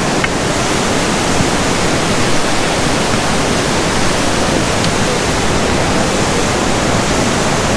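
Mandakini River's fast mountain current rushing below the bridge: a loud, steady wash of water noise.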